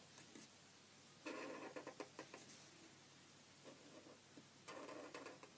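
Felt-tip pen strokes scratching across paper, faint, in two stretches: one a little over a second in and a shorter one near the end.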